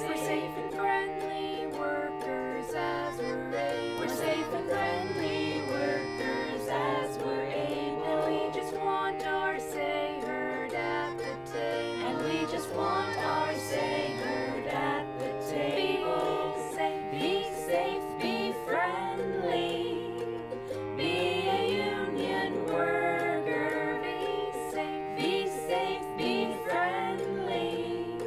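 A group of voices singing a song together, accompanied by a plucked string instrument playing a stepping bass line.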